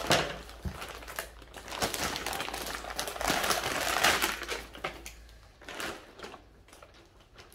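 Packaging crinkling and rustling as a soft toy is handled and unwrapped. It is dense and busy for the first five seconds or so, then thins to a few fainter rustles.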